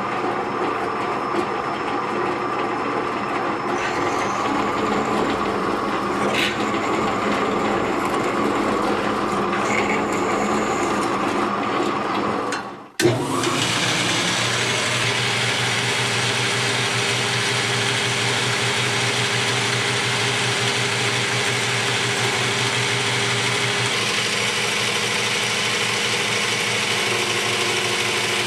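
Drill press motor running while its bit drills into a metal plate, with faint high squeals now and then. About halfway through, a metal lathe takes over, running steadily, its tone shifting twice near the end.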